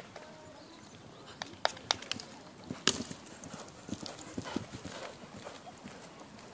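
Hoofbeats of a horse cantering on an arena's sand surface, heard as irregular sharp thuds that are loudest in the first half.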